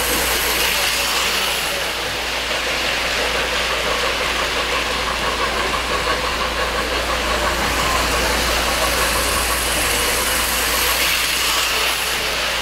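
O-scale model trains running on a layout: a steady rolling rumble of wheels on track, with a constant low hum underneath.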